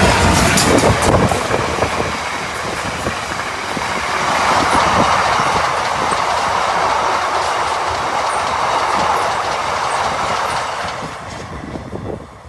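A train passing close by on the line: a loud rush as the front goes past at the start, then steady rumbling and clatter of the wheels on the rails, fading away near the end.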